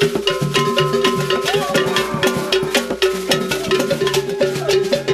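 Percussion-led music: fast, even strikes of a bell or wood-block kind, several a second, over a steady held tone.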